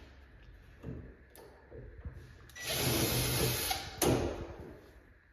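Doorknob hardware being worked on a door: a few light knocks, then about a second of loud scraping, rattling noise, ending in a sharp metallic click.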